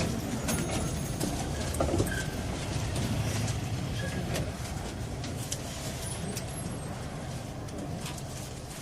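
Tram in motion heard from on board: a steady low rumble of the running gear on the rails, with scattered clicks and rattles. The rumble eases off a little over the second half.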